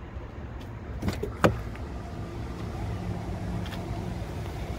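Peterbilt 389 semi truck's diesel engine idling steadily while the air system builds pressure to raise the lift axles and suspension. Two sharp clicks come about a second in.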